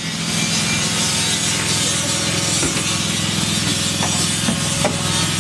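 Mark III Toyota Supra engine idling steadily with a rough, rasping exhaust note, with a couple of faint knocks near the end.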